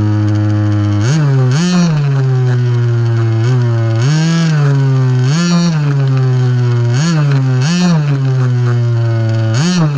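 Off-road RC buggy's motor running steadily and revving in short throttle bursts. Its pitch rises and falls about eight times.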